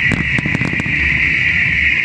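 Aerial fireworks shells bursting: a quick run of about five sharp bangs in the first second, then a lull, over a steady high-pitched hiss.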